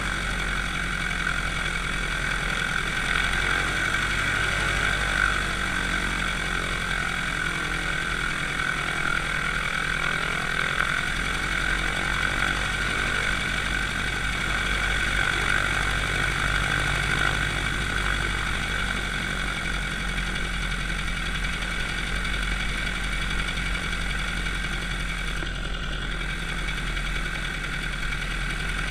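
A biplane's piston engine idling steadily on the ground, with a steady hiss from the propeller and wind over it.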